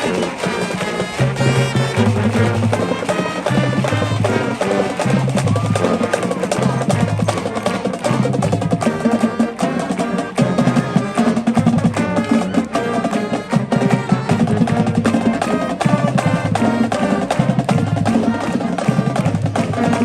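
Marching band playing, with drums keeping a steady beat under brass and a moving bass line.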